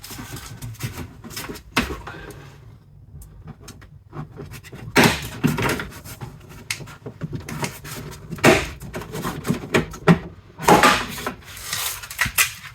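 Plastic inner tailgate trim on a 2018 Toyota Auris being worked loose by hand: scraping and rubbing of plastic with irregular clicks and knocks, and louder bursts about five, eight and a half, and eleven seconds in as the clips give.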